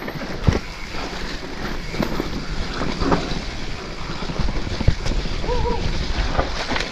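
Mountain bike riding over a rocky trail: tyres and frame rattle with a run of knocks over the rocks, and wind buffets the microphone.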